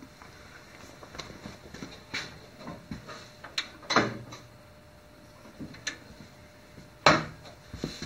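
Planer hood of a MiniMax CU300 combination machine being raised and lowered, its linkage to the safety switch clicking and clunking. Light scattered clicks, with a knock about four seconds in and a louder one about seven seconds in.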